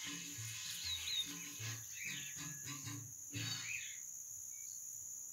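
Crickets trilling steadily in a high band, with a few short bird calls. Faint music with a low, regular beat plays underneath for the first few seconds.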